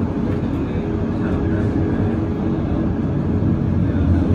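Tram running at speed, heard from inside the car: a steady low rumble of wheels on the rails with a hum from the drive.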